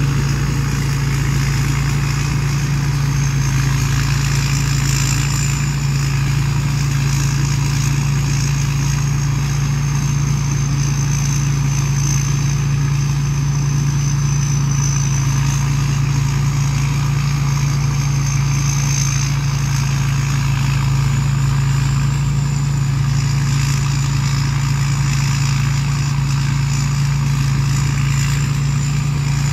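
Rice combine harvester's diesel engine running steadily as it harvests: a constant low drone, with a thin high whine above it that wavers slowly in pitch.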